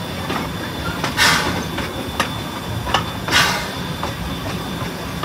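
Amusement-park steam train running along the track, heard from just behind the locomotive: a steady rumble with light clicks from the wheels, and two short hissing bursts about two seconds apart.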